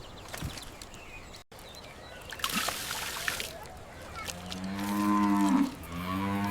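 Cattle lowing: two long moos back to back in the second half, the second running on past the end. Before them, a few faint clicks and a short hiss.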